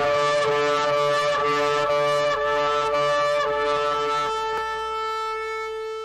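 Shofar blown in a rapid series of short blasts, about two a second, then held as one long steady note from about four seconds in.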